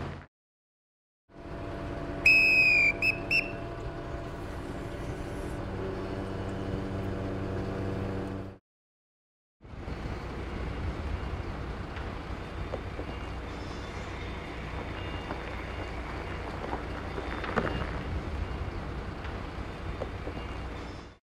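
A dogger's whistle giving the crane 'slew right' signal, one long blast then two short ones, about two seconds in. Under it and through the rest, a mobile crane's engine runs steadily, broken by two brief silent cuts.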